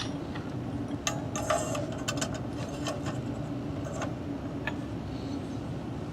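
Small clicks and clinks from handling soldering tools and cable while joining patch-cable connectors, over a steady low mechanical hum.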